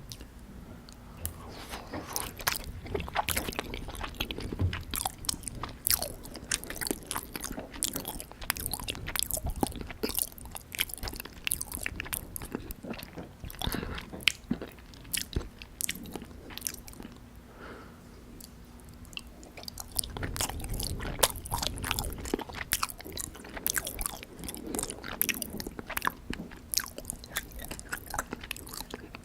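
Close-miked chewing of syrup-soaked gulab jamun, a dense run of irregular wet mouth clicks as the soft, moist dough is bitten and chewed.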